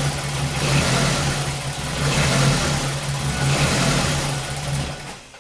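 2001 Ford Focus's Zetec four-cylinder engine running with a misfire, then switched off near the end, its sound dying away. The scope shows every injector sometimes firing twice, which the owner cannot explain.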